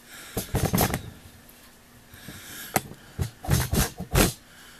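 Irregular knocks and rustling of the camera being handled and repositioned: a cluster about half a second in, then a sharp knock and several more in a row in the second half.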